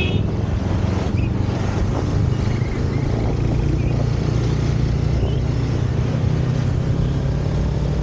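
Motorcycle engine running steadily while riding, heard from on the bike as a constant low hum under a steady rush of wind and road noise.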